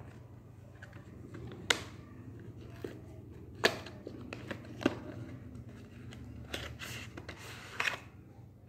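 Cardboard box being opened by hand: a few sharp clicks and taps from the flap and tray, then papery rustling and scraping as the inner tray slides out of the box near the end.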